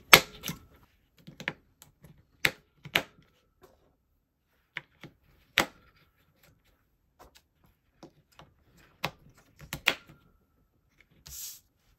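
Rechargeable batteries being pushed into a plastic battery holder: scattered clicks and knocks, the sharpest about five and a half seconds in, and a brief scratchy hiss near the end.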